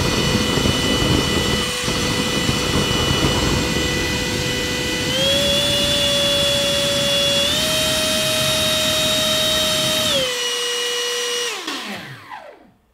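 Electric motor spinning a 3D-printed centrifugal fan at full throttle: a steady high whine over the rushing noise of a propane afterburner flame. The whine steps up in pitch twice and drops back. The flame noise cuts off about ten seconds in, and the whine falls in pitch as the fan spins down near the end.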